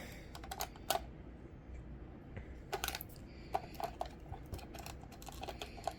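Scattered light clicks and taps of a small plastic radio being handled, a few seconds apart, over a faint low hum.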